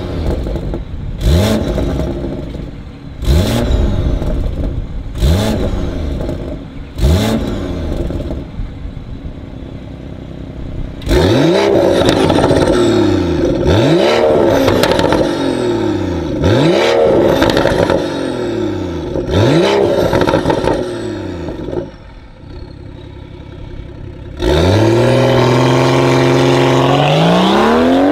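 BMW X3 M40i's B58 turbocharged inline-six, breathing through a Fi valvetronic exhaust with catless downpipe, blipped in short revs at a standstill. It makes about five blips with the exhaust valves closed, then about six louder ones with the valves open, with idle between. Near the end it pulls away, the engine note rising steadily as it accelerates.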